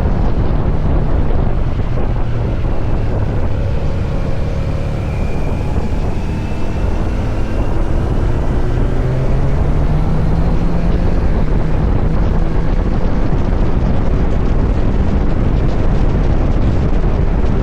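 Kawasaki Z900 SE's inline-four engine running through an SC-Project CR-T exhaust while riding, with wind noise on the microphone. The engine note dips briefly about five seconds in, then climbs again.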